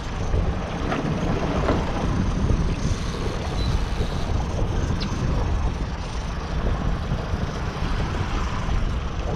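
Wind buffeting the microphone and choppy water splashing around a small trolling fishing boat: a steady low rumble with a few faint ticks.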